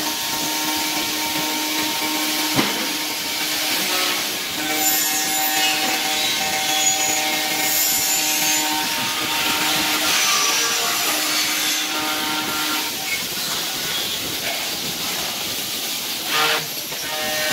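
CNC profile machining center milling an aluminium profile: steady spindle and cutter tones over cutting noise and a constant hiss, the tones changing pitch partway through, with a single sharp click about two and a half seconds in.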